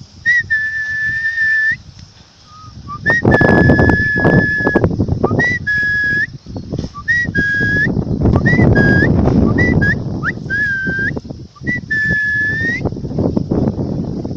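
A person whistling to call a pet bird home: a series of clear, steady whistled notes, some held for about a second and others short, each ending with a small upward flick. Loud rumbling wind or handling noise on the microphone runs under the whistles for a few seconds at a time.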